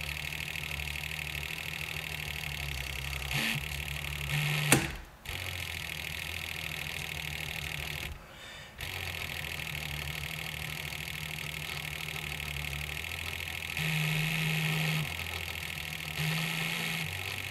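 Cordless drill driving the Lil Buddy Mongoose winder, pulling cutting line through the windshield urethane: a steady motor hum that drops out briefly twice, with a click near the first stop. Near the end it twice runs up to a higher speed for about a second.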